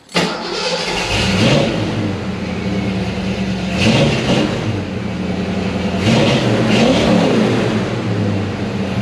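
1983 Ford Fox Body Mustang's engine running on the road, revving up and easing off a few times as the car accelerates.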